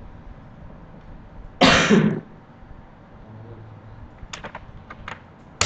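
A person coughs once, a short harsh burst about a second and a half in, followed by a few short sharp clicks near the end.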